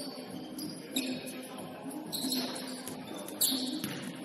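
Basketball game sounds in a gym: sneakers squeaking on the court floor several times, with a few sharp knocks of the ball bouncing.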